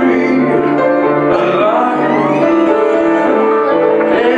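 Live music: piano accompaniment under a sustained melody carried by the performer's voice into the microphone.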